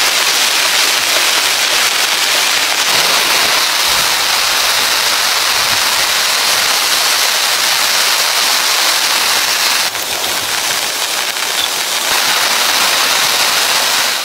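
Heavy rain falling steadily, pattering on the clear plastic sheeting of a small bamboo dome shelter, a dense unbroken hiss. It eases slightly about ten seconds in.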